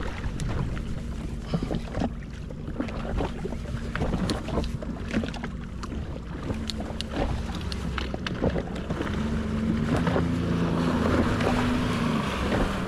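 Wind on the microphone and water slapping a jet ski's hull while a fish is played on a jig rod, with sharp clicks and knocks from the rod and reel being worked. A low steady hum grows stronger in the last few seconds.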